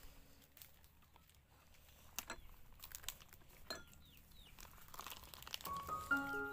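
Faint crinkling and crackling of dry rice paper sheets being handled, with scattered small clicks. Soft background music comes in near the end.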